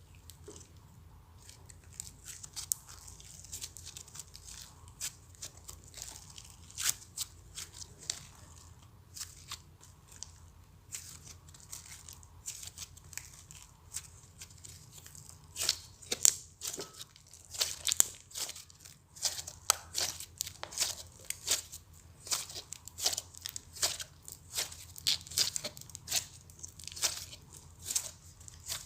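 Slime being squished and stretched by hand, giving off irregular crackling and popping clicks that come thicker and louder from about halfway.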